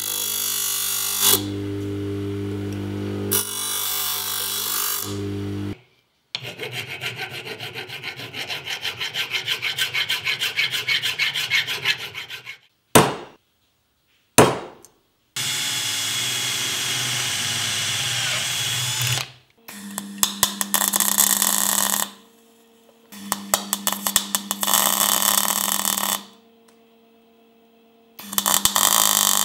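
A run of metalworking sounds: a bench grinder grinding a steel edge, then quick rhythmic hand-tool strokes that grow louder, two sharp taps, and a few seconds of steady grinding. In the last third, a MIG welder fires in three bursts of a few seconds each, a buzzing crackle of spatter.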